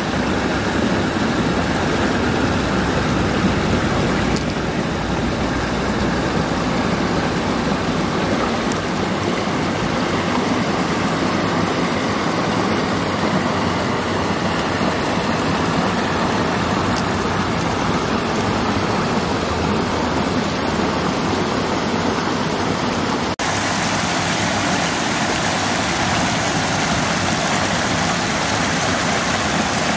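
Steady rushing of flowing river water, an even wash of noise with a momentary drop about three quarters of the way through.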